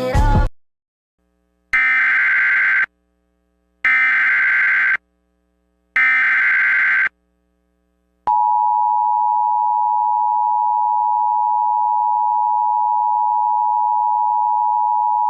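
Three Emergency Alert System SAME header data bursts, each about a second long and spaced about two seconds apart. About 8 seconds in, the steady two-tone EAS attention signal (853 and 960 Hz) starts and holds without change, announcing an alert activation.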